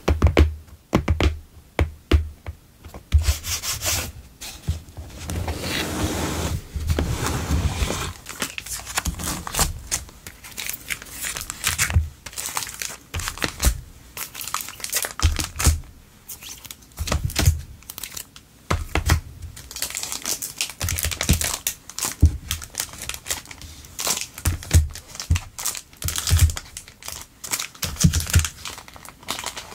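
Cellophane-sleeved stationery packs crinkling as they are handled and laid down one after another on a wooden desk, with many light taps and low thumps as each pack lands.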